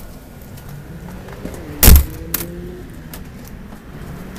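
Hotel room door shutting: one loud thud about two seconds in, followed by a smaller click of the latch.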